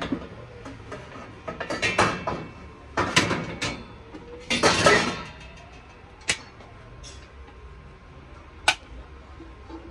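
Brass vessels knocking and clinking against each other as they are shifted and a lidded brass canister is lifted off the shelf: a few bursts of metallic clatter, then two single sharp clicks later on.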